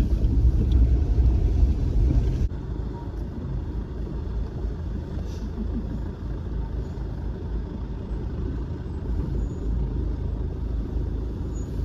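Low, steady rumble of a car's engine and tyres on the road while driving, loud for the first couple of seconds and then dropping suddenly to a lower, even level.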